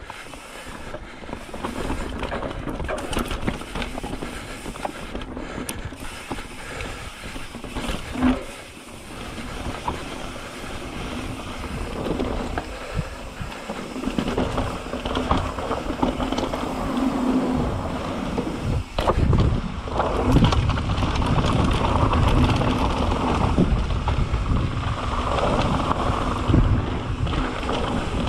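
Mountain bike descending a rough dirt trail: the drivetrain and frame click and rattle, the tyres run over dirt and rock, and there are sharp knocks over bumps, with clear ones about 8 and 19 seconds in. From around two-thirds of the way through it gets louder and rougher.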